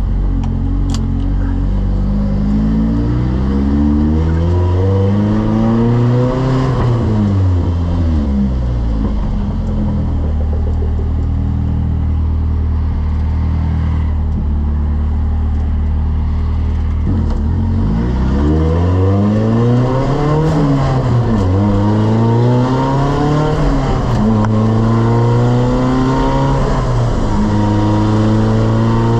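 Nissan 240SX (S13) engine pulling under acceleration, its pitch climbing and then dropping sharply at gear changes about 7 and 17 seconds in, with a steady cruising stretch between and several more shorter climbs and drops in the second half.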